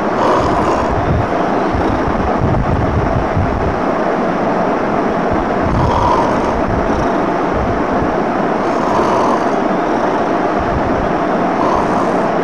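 Steady, loud rushing noise with faint soft puffs recurring every few seconds.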